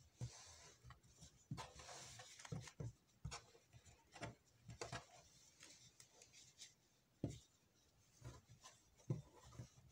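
Faint rustling and soft bumps of hands handling and rubbing a crocheted macrame-cord bag against a tabletop. The rustle is most continuous in the first three seconds, then turns into scattered light taps.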